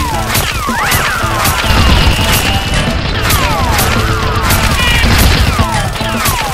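Background music with a steady beat and sliding synth notes.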